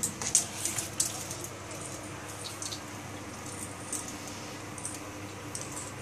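Cats pouncing on and batting a measuring tape across a parquet floor: quick rustles, scrabbles and light taps of paws and tape, busiest in the first second and then scattered and brief, over a faint steady hum.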